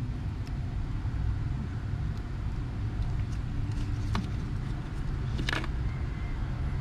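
Steady low background rumble, with a few faint clicks about half a second, four seconds and five and a half seconds in.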